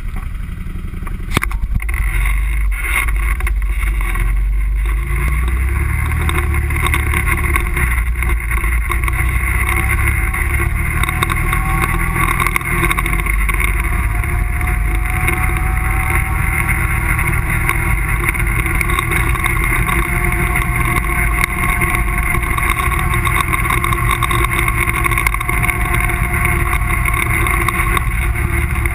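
ATV engine running steadily as the quad rides a dirt trail, heard close up from a camera mounted on the machine, with small rises and falls in pitch. One sharp knock about a second in.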